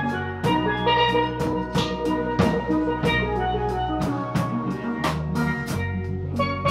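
A live steel band playing: steel pans carry the melody over a drum kit with cymbals and an electric bass guitar, at a steady beat.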